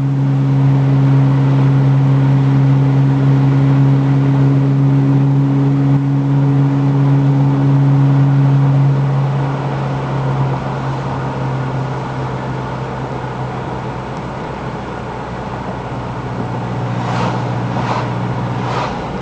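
Toyota Tacoma pickup driving, heard from inside the cab: a steady engine and road hum that eases about nine seconds in. Three brief noises come near the end.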